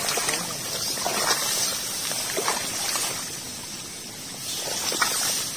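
Shallow water sloshing, with several short splashes, and wet grass rustling as a person wades and reaches by hand into a flooded, weedy rice field.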